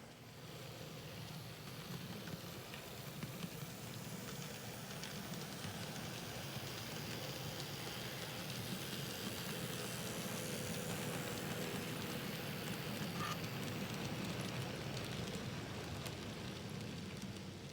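N-scale Kato SD70M model locomotive running on the layout's track with a string of grain cars: a steady whir and fine rattle of the motor and small wheels on rail joints. It grows louder toward the middle and falls away near the end.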